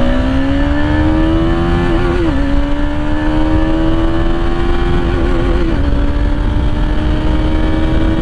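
KTM Duke single-cylinder motorcycle engine pulling hard under full acceleration. Its note climbs steadily and drops back twice, about two seconds and five and a half seconds in, as the rider shifts up through the gears. A low rush of wind noise runs beneath it.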